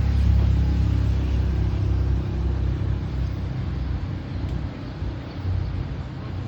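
A motor vehicle engine running with a low rumble, loudest in the first couple of seconds and then easing off.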